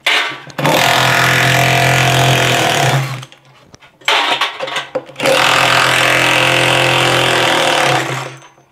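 Cordless power driver with a Torx 40 bit spinning out the screws that hold a washing machine's concrete counterweight to the drum tub. It runs twice, steadily, for about two and a half seconds each time, with a short pause between.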